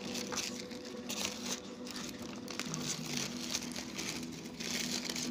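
Paper burger wrapper crinkling and rustling in intermittent handfuls as it is handled in a cardboard takeaway box.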